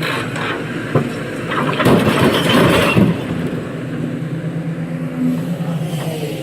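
Heavy diesel earthmoving machinery running steadily at a constant pitch. About two seconds in there is a louder noisy burst lasting about a second, and a sharp click comes a second before it.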